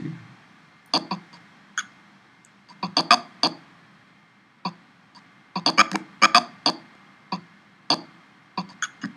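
Irregular sharp clicks of someone working a computer's mouse and controls. Some clicks come singly and some in quick runs of three or four, with the busiest run about halfway through.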